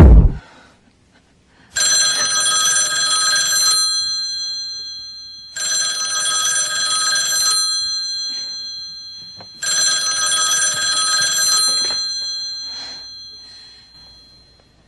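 Telephone ringing three times, each ring about two seconds long, with about two seconds between them. Each ring starts abruptly and dies away slowly.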